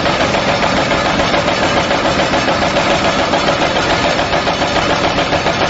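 Stainless-steel dried-chili shredding machine running, its cutter chopping at a fast, even rhythm as it slices dried chilies into thin strands.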